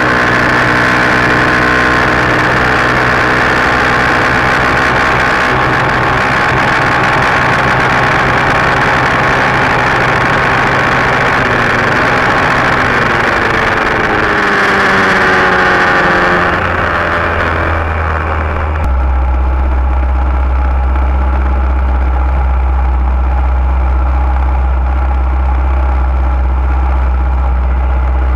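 Junior dragster's single-cylinder engine running, heard from a camera mounted on the car's side. Its pitch rises and falls briefly a little past halfway, then about two-thirds through it drops abruptly to a low, steady idle.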